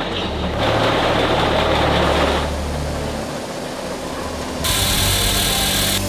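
Concrete slab extruder machine running: a steady motor hum with rougher machine noise over it for the first couple of seconds. The sound changes abruptly to a hissier machine noise near the end.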